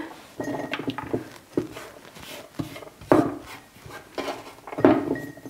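Chopped garlic pieces dropped by hand into a glass jar, with scattered light taps, and fingers brushing leftover pieces across a wooden cutting board.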